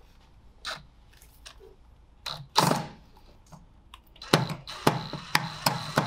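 Clicks and knocks of metal safe-lock parts and hand tools being handled, sparse at first, with one louder knock and then a quick run of sharp clicks in the last two seconds.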